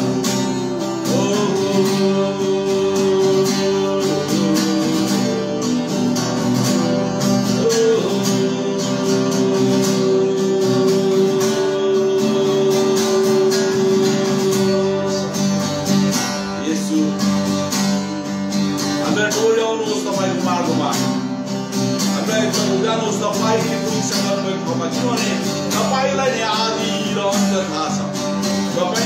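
Acoustic guitar strummed steadily under a man singing a slow worship song, his voice holding one long note for several seconds about a third of the way in.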